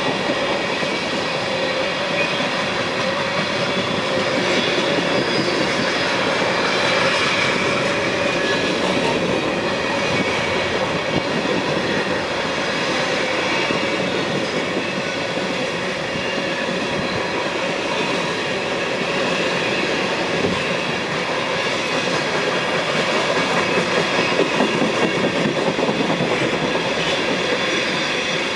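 Empty coal cars of a long freight train rolling past: steel wheels on the rails making a steady rumble and clatter, with faint high squealing tones over it.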